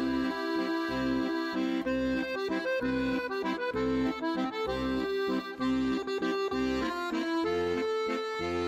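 Bouncy instrumental background music: a reedy tune over a bass that pulses about twice a second.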